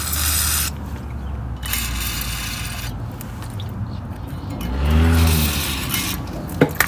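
WD-40 aerosol can spraying in two hissing bursts, the first ending under a second in and the second lasting about a second, to clean brake parts. A brief low hum follows, then a couple of sharp light clicks near the end.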